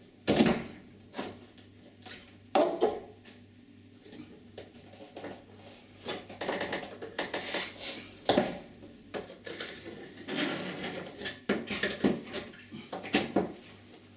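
A steel flat scraper prising a uPVC glazing bead out of a door frame: irregular sharp plastic clicks and knocks with stretches of scraping as the stiff bead is worked loose and pulled free.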